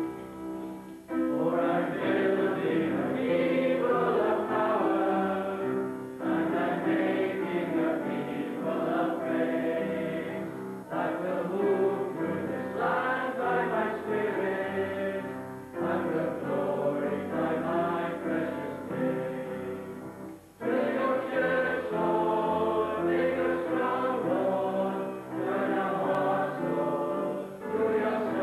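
Boys' choir singing a hymn, in phrases about five seconds long with a short break between each.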